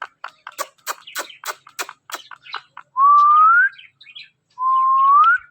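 Ringneck parakeet making a quick run of sharp clicks, then two clear whistles that each rise in pitch.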